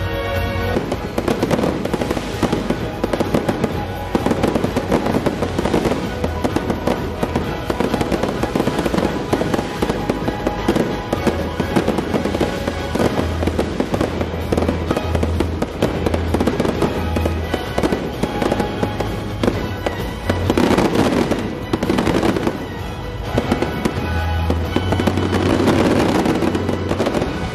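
Fireworks bursting in rapid succession, with bangs and crackles over a show's music soundtrack played through loudspeakers; the barrage swells louder twice in the last third.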